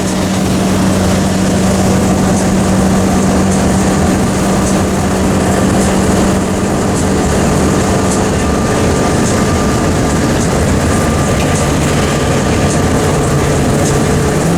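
RV driving at highway speed: steady engine drone with road and wind noise.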